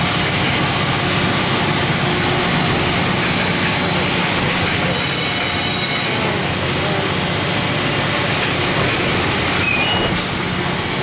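Steam engines of the sternwheeler Natchez running in the engine room: a loud, steady mechanical din without a break.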